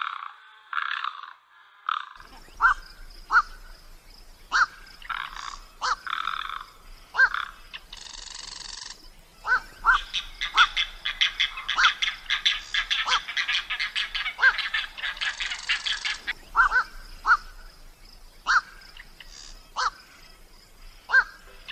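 Animal calls: short, sharp chirps repeated every second or so, with a long, fast rasping rattle in the middle.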